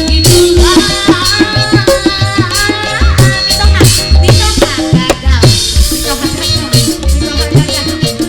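Live dangdut band music: a steady drum beat under a melody line that bends up and down in pitch.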